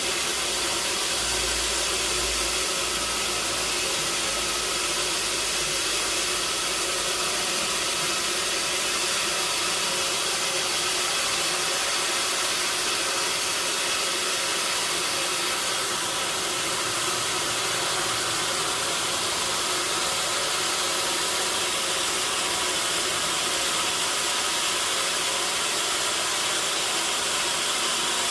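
Sawmill machinery running with a steady, even hissing noise that does not change throughout.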